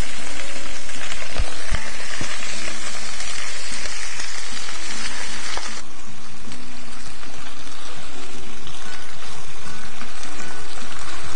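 Cabbage sizzling as it is stir-fried in a hot nonstick pan with a spatula, with a few knocks of the spatula against the pan about a second and a half in. The sizzle drops off sharply about six seconds in and carries on more quietly.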